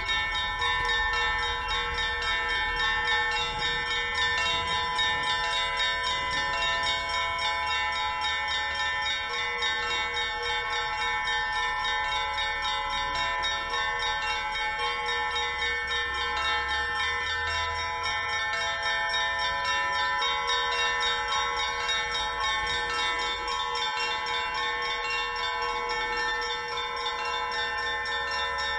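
Orthodox monastery bells ringing together in a continuous peal. Many bells sound at once, with small bells struck in quick succession over the steady ring of several larger ones.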